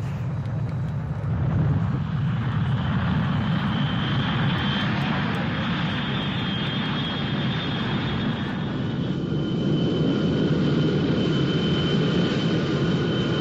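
Aircraft engines running: a steady loud rush with a thin high whine above it, building up over the first second or two and then holding.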